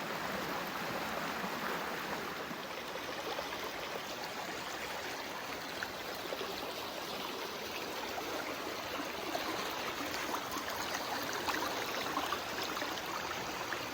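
Snowmelt creek water running over rocks, a steady rushing and burbling, with a few faint small clicks later on.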